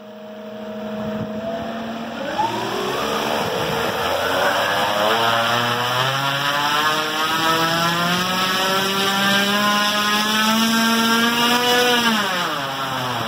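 Neu 8057 brushless electric motor, driven by a Scorpion Tribunus 300 ESC, spinning an Engel 30x16 three-blade propeller on a ground run. It throttles up over the first few seconds with a rising whine and growing prop noise, holds at high power, then throttles back about twelve seconds in as the pitch falls.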